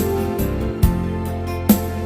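Background music: a steady, gentle instrumental track with a regular beat, a hit a little under once a second.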